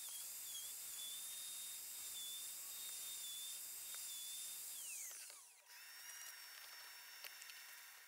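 Plunge router running while cutting slot mortises in African mahogany for floating tenons, its high motor whine wobbling slightly in pitch under the cut. About five seconds in the whine falls away as the router spins down, then a second, higher steady whine takes over until the sound cuts off at the end.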